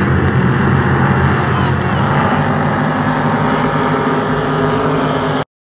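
Several flat-bottom inboard race boats running together at full throttle as they pass close by, a loud steady engine blare; the sound cuts off abruptly near the end.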